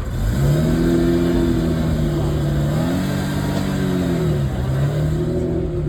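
Ferrari Testarossa's flat-12 engine on its stock exhaust, being revved. The pitch climbs and holds, climbs again about three seconds in, drops back, then rises once more near the end.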